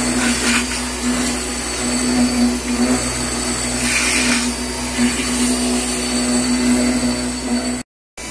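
CNC router spindle running an end mill through a laminated wooden casting pattern: a steady machine hum and hiss, with louder bursts of cutting noise about half a second and four seconds in as the bit bites into the wood. The sound cuts out briefly near the end.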